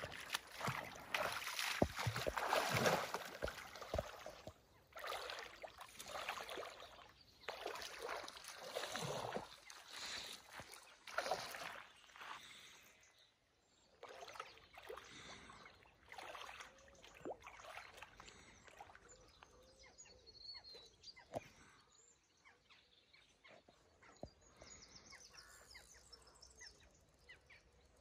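River water splashing and sloshing in irregular bursts, louder in the first dozen seconds and quieter after.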